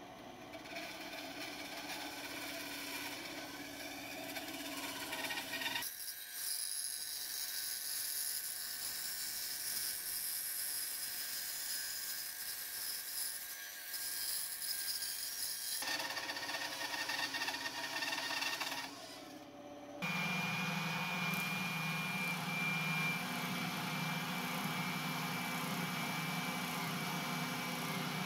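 Bandsaw running and cutting through hard maple, in several edited passes. About twenty seconds in it gives way to a spindle sanding drum running with a steady high whine as a maple piece is sanded against it.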